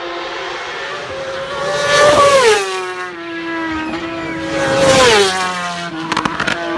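Two racing superbikes pass flat out, one after the other, each engine note rising in loudness as it approaches and dropping sharply in pitch as it goes by, about two and five seconds in.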